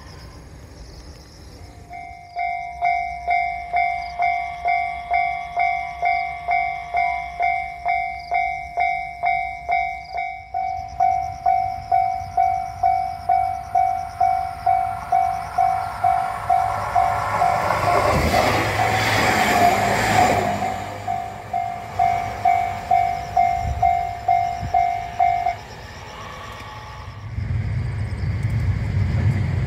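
Japanese level-crossing warning bell ringing at about two strikes a second while a train approaches. The train's rumble builds and it passes loudly over the crossing. The bell stops a few seconds later, and a low rumble rises near the end.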